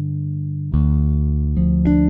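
Background music: a held low chord fading, a new chord struck under a second in, and a run of melody notes starting near the end.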